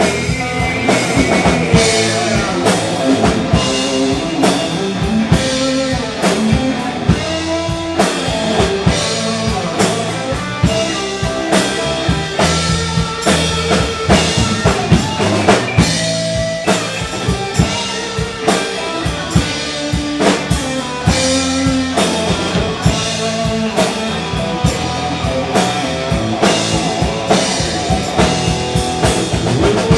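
Live rock-style worship band, drum kit and electric guitars, playing an instrumental break of a hymn with no singing.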